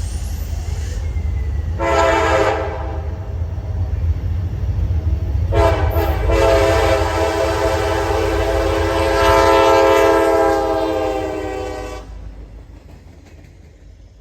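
CSX GP40-2 locomotive's K5LA five-chime air horn sounding a grade-crossing signal: a short blast about two seconds in, then a long blast of about six seconds that cuts off sharply. Under it runs the steady low rumble of the locomotive's diesel engine, fading after the horn stops.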